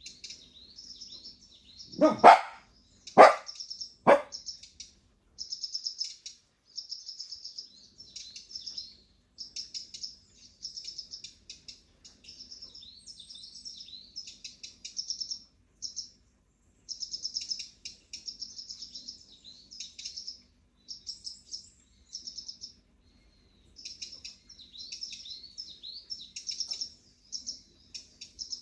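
Recorded birdsong of rapid high chirps and trills played from a Yandex Alice smart speaker. A Pembroke Welsh corgi barks three times, about two to four seconds in.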